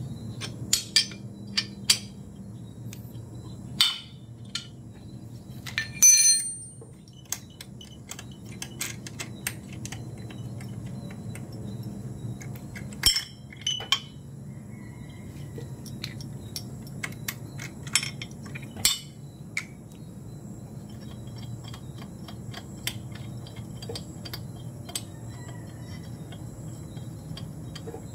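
Light metallic clicks and clinks of the cylinder-head nuts and small parts being handled on a Yamaha RXS/RXK/RXZ motorcycle engine, during a copper head-gasket change. A louder ringing clink comes about six seconds in, and a few sharper clicks follow around thirteen and nineteen seconds in.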